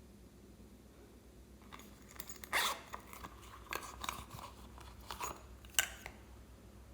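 Slime being squeezed and worked by hand, giving a run of sharp crackles and pops for a few seconds after a quiet start.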